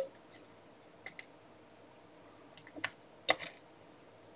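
Scattered light clicks and taps from battery cells and meter test probes being handled during voltage checks, the loudest about three seconds in.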